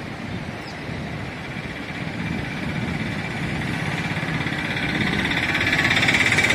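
An engine running, growing louder over the last couple of seconds.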